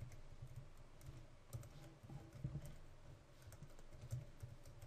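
Faint, irregular keystrokes on a computer keyboard: someone typing.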